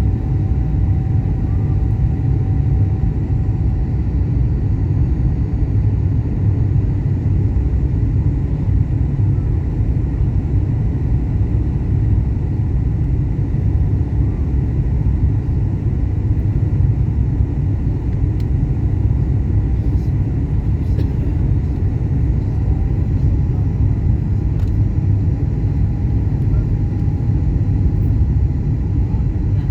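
Steady low rumble of an airliner heard from inside the passenger cabin, even throughout with no sudden changes.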